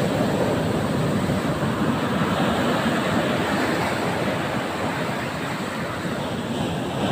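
Ocean surf: a steady wash of breaking waves on a beach, with wind on the microphone.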